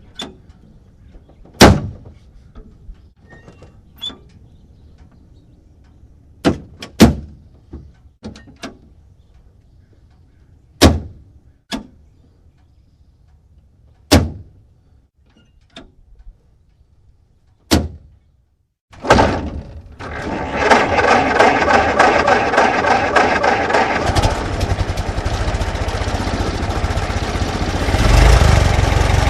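Old car: a series of clunks and slams like its doors and latches being worked. About twenty seconds in, the engine starts and runs at idle, getting louder briefly near the end.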